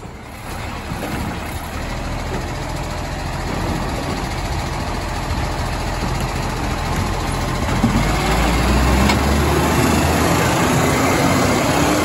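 Diesel engine of an Iveco side-loading garbage truck running as the truck pulls up close, growing steadily louder. About eight seconds in it deepens and gets louder for a second or so.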